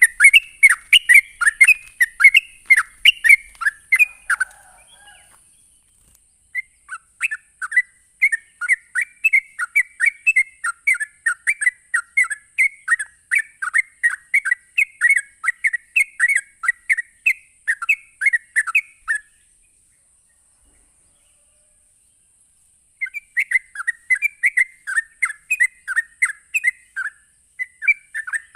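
Yellow-vented bulbul (trucuk) singing its rapid chattering 'ropel' song, quick repeated chirps about three a second. It sings in bouts: a short run at the start, a long run after a brief pause that stops about two-thirds through, then starts again near the end. A steady faint high hiss runs under it.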